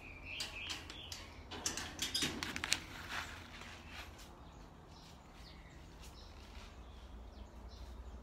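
A flurry of short crackling and clicking handling noises about two to three seconds in, against a quiet outdoor background, with a faint bird chirp at the start.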